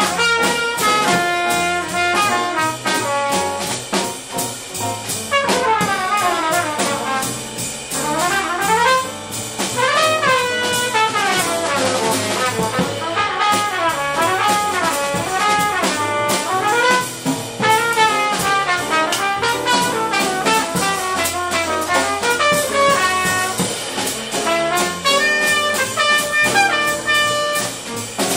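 Jazz quartet playing: a trumpet solo of fast runs rising and falling over piano, double bass and drums. The trumpet breaks off near the end.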